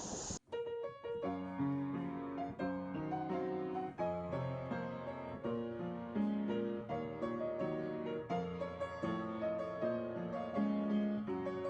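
Background piano music, a steady run of notes. It starts just after a brief rush of noise cuts off sharply about half a second in.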